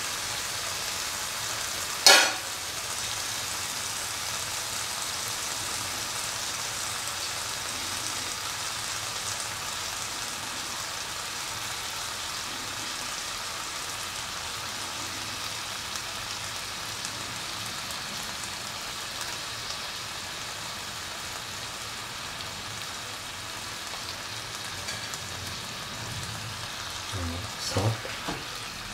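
Chicken liver and carrots sizzling steadily in an oiled pan, with one sharp knock about two seconds in. Near the end a spatula starts clattering and scraping as the mixture is stirred.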